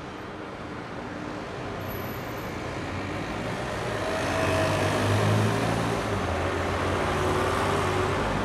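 Road traffic: a steady wash of vehicle noise that grows louder over the first half, with a low engine hum strongest around the middle as a heavier vehicle passes close.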